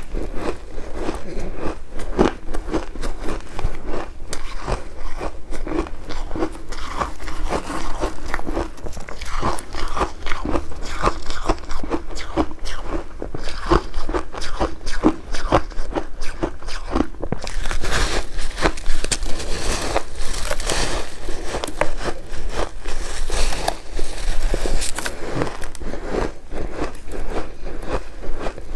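Ice being bitten and crunched between teeth while chewing, a dense run of sharp cracks and crunches.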